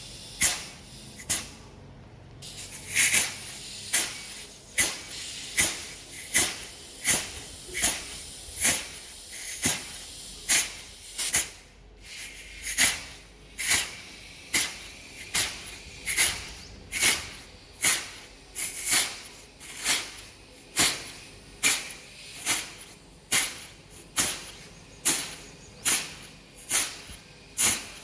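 Short, sharp hisses of pressurised air or gas, repeating evenly about three times every two seconds, as a car's air-conditioning system is being flushed and cleaned out.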